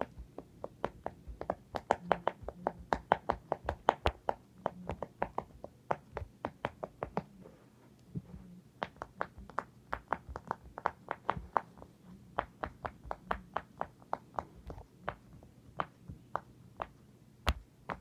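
Silicone pop it fidget toy having its bubbles pressed one after another: a run of sharp little pops, a few a second, with short pauses between runs.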